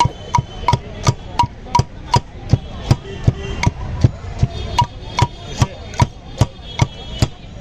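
Steady rhythmic knocking, about three strikes a second, each with a short ringing tone: boroi (jujube) vorta being pounded and mashed in preparation.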